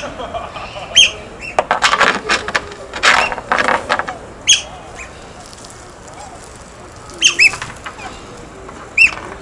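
Otters giving short, high-pitched squeaking chirps, one at a time and sometimes in pairs, about five or six times. Between the first chirps come a couple of seconds of noisy scuffling.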